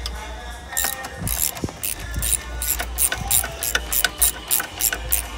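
Hand socket ratchet on a long extension clicking in quick back-and-forth strokes, about four clicks a second starting about a second in, as a bolt is backed out to free the A/C condenser.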